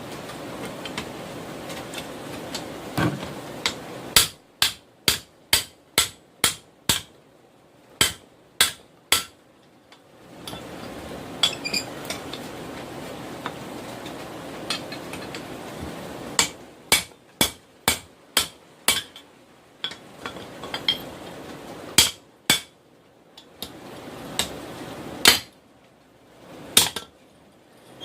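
Hand hammer blows on hot railroad rail steel against an anvil, in runs of several strikes about two a second with pauses between, then a few single blows near the end.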